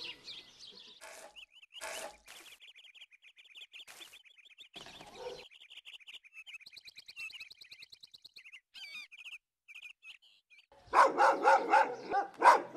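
Small birds chirping and trilling, with a few brief hissing sounds. Near the end a dog starts barking loudly in quick succession.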